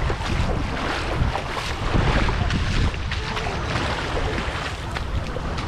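Wind buffeting the microphone over the steady wash of the sea.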